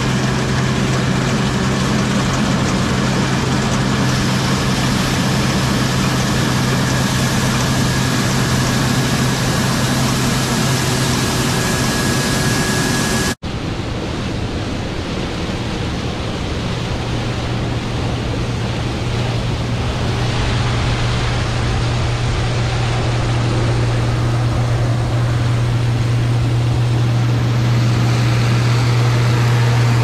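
Case IH Axial-Flow combine's turbocharged diesel engine and threshing machinery running steadily as a loud, even drone with a low hum. About 13 seconds in the sound breaks off sharply and resumes at once as another combine harvesting corn, just as steady.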